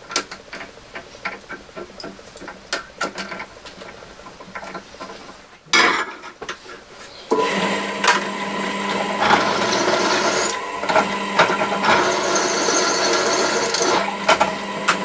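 Clicks and knocks of tools being handled, then about seven seconds in a small electric drill press starts up and runs steadily with a motor whine, for step-drilling holes in a metal plate.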